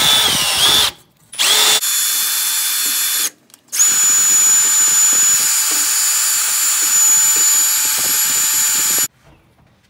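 Electric drill spinning a small wire brush wheel against the metal ball joint bore of a lower control arm, scrubbing it clean. It runs, stops about a second in, gives a short burst, runs again, pauses briefly past three seconds, then runs steadily with a high whine until cutting off near the end.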